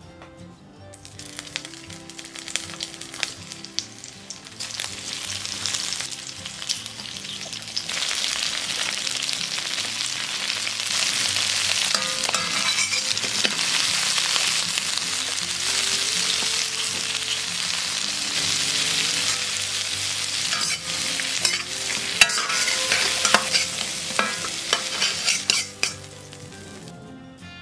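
Shrimp frying in hot oil in a ZWILLING Nova Plus wok: a sizzle that builds over the first several seconds and stays loud, with utensils clicking against the pan as the shrimp are turned. The sizzle drops away shortly before the end.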